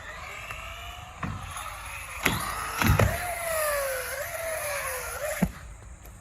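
Electric RC truck's motor whining, its pitch rising and falling with the throttle, with sharp knocks of the truck hitting and landing on the concrete about a second in, twice near the middle, and once near the end.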